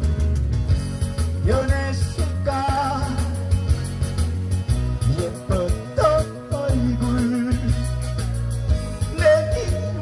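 Live amplified band music with a steady beat and bass under a melody line that glides between notes, with singing in places.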